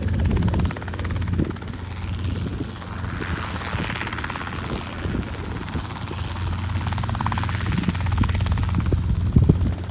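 Small training helicopter hovering: a steady engine-and-rotor drone with a fast, even pulsing from the blades, swelling louder twice.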